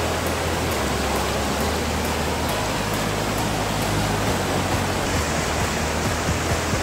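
River rapids rushing over rocks: a steady, even rush of fast-flowing white water.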